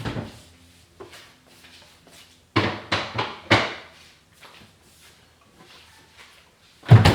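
Knocks and clunks of things being handled in a kitchen: a cluster of about four sharp strikes a few seconds in, and a single louder clunk near the end.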